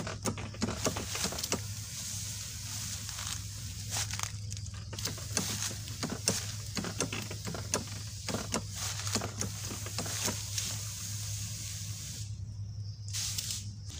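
Motorised backpack sprayer running: its pump hums steadily while spray hisses from the wand nozzle, cutting off briefly near the end. Footsteps and rustling through grass and brush come in short crackles throughout.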